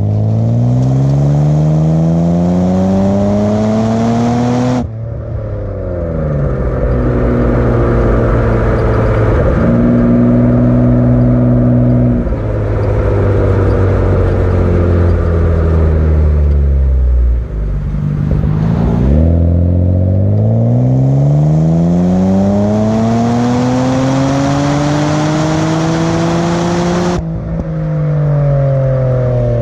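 Mitsubishi Legnum VR-4's twin-turbo V6 pulling hard through its exhaust. The pitch climbs for about five seconds, then drops abruptly as the throttle is lifted or the gear changes. After that it runs steadily and winds down, then climbs again in a long pull of about eight seconds near the end before cutting off sharply and falling away.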